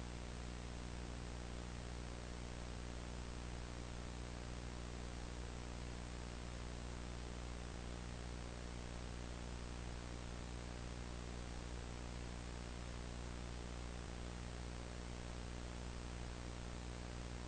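Steady hiss with a low mains hum underneath, unchanging throughout: a blank-tape, VHS-style noise effect.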